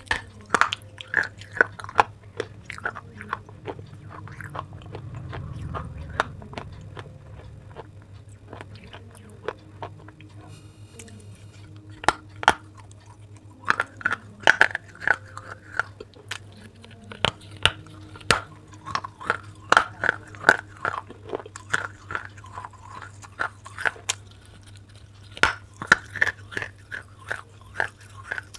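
Close-miked biting and chewing of baked clay pot pieces: sharp, brittle crunches and cracks come in quick runs, thinning out for a few seconds in the middle. A steady low hum sits underneath.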